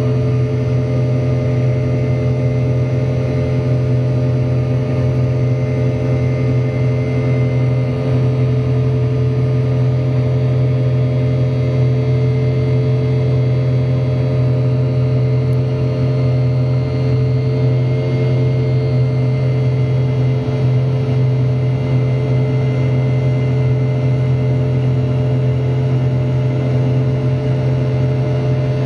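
Rolls-Royce BR715 turbofan of a Boeing 717-200, heard inside the cabin from a seat beside the rear-mounted engine during the climb. It gives a steady, loud drone laced with many steady tones, the fan's buzzsaw noise at high thrust.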